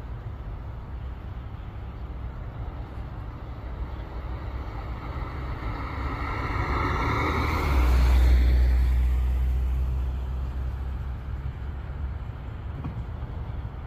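A car driving past on the road: its engine and tyre noise swell to a peak about eight seconds in, with a heavy low rumble as it goes by, then fade away, over a steady low background rumble.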